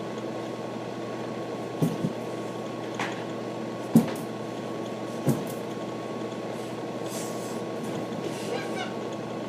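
A few scattered knocks and bumps, the loudest about four seconds in, over a steady electrical hum, with faint rustling near the end.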